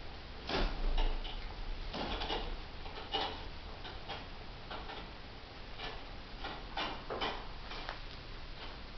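A Jolly Jumper doorway baby bouncer clicking and knocking irregularly, about once or twice a second, as a child bounces in it. The loudest knocks come in the first second or so.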